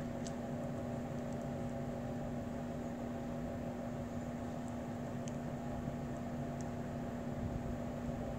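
Steady room background: a constant low hum at one pitch over an even hiss, with a few faint ticks.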